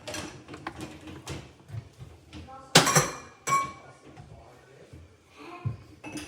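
A series of hard clicks and knocks from objects being handled, the loudest a clatter about three seconds in.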